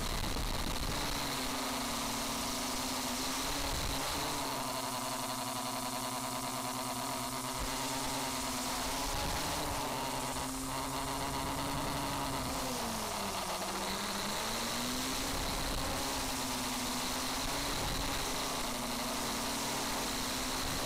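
Home-built drone's motors and propellers buzzing steadily, with a thin high whine above; the pitch dips and climbs back several times as it manoeuvres, most deeply about two-thirds of the way through.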